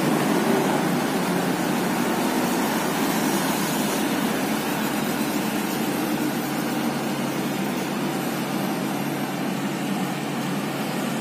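Sakai TS205 pneumatic-tyre road roller's diesel engine running steadily as the roller rolls over fresh asphalt and moves away, growing slightly fainter.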